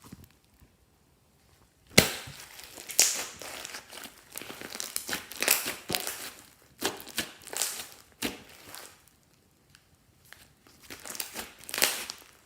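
Glossy slime being handled: irregular sticky crackles and pops, starting with a sharp snap about two seconds in after a nearly quiet start.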